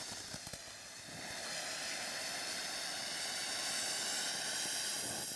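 Micro Burst firework fountain spraying sparks with a steady hiss that builds about a second in.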